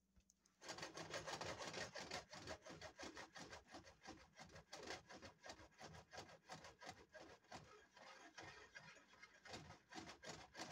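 A spoon stirring thick beef stew in a saucepan, scraping through it in quick, repeated strokes that start about a second in.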